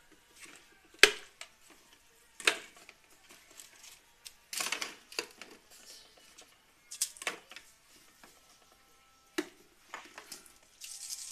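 Kitchen containers being handled: a series of separate sharp knocks and clicks a second or two apart, with a short rustle about halfway through.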